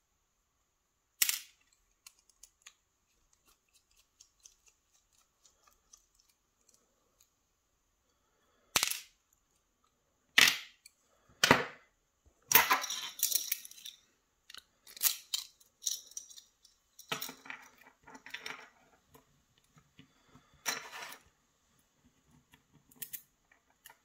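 Small metal parts of a Sargent pin-tumbler lock cylinder clicking and rattling as it is taken apart by hand, with parts set down on a plastic tray. A few separate sharp clicks come first, then a busier run of clicks and rattles from about halfway through.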